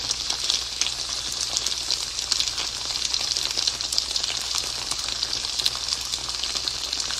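Spicy chicken dakgalbi sizzling steadily in a pan on the heat, a continuous hiss with fine crackling pops.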